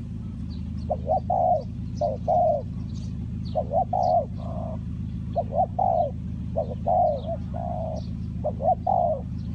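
Spotted dove cooing over and over, each phrase a few quick coos running into a longer coo, about one phrase every two seconds. Faint high chirps of small birds and a steady low hum lie underneath.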